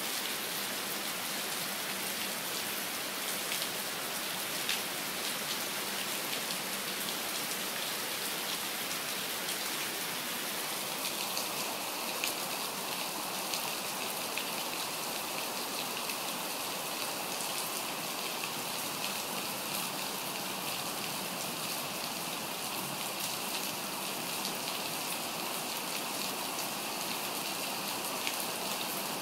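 Steady heavy rain falling and pattering on surfaces, with scattered drops ticking.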